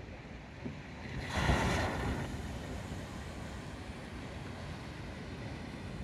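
Big ocean waves breaking: a loud crash about a second and a half in, then a steady wash of surf, with wind on the microphone.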